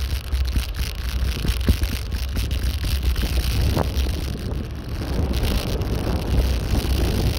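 Wind buffeting the microphone of a moving bicycle, a steady low rumble, with tyre noise and scattered light knocks and rattles as the bike rolls over sidewalk joints.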